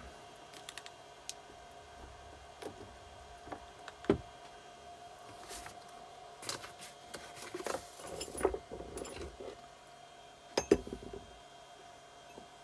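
Scattered metallic clinks and knocks of small engine parts and hand tools being handled on a motorcycle engine, with two sharper knocks, about four seconds in and near eleven seconds, over a faint steady hum.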